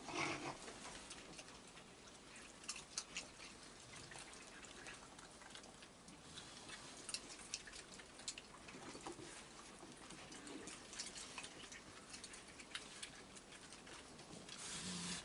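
Raccoons moving and feeding on a wooden deck: faint, scattered clicks and taps of claws and paws on the boards and railing, with a brief louder scuffle right at the start and a rising rustle near the end.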